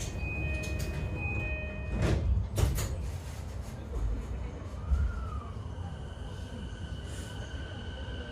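Inside a JR East E233-8000 series commuter train: a steady high tone in the first second and a half, then heavy knocks of the sliding doors shutting about two to three seconds in. From about four seconds in comes the whine of the Mitsubishi IGBT-VVVF inverter, rising then falling, then settling into steady high tones over the car's rumble as the train pulls away.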